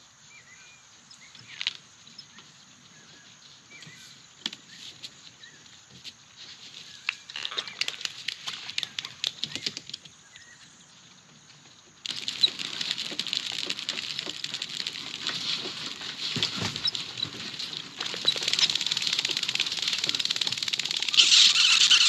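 Animated-film sound effects of a bug world, with no dialogue or music: scattered small clicks and a few short chirps, then a dense, hissing rush that starts suddenly about halfway through and grows louder toward the end.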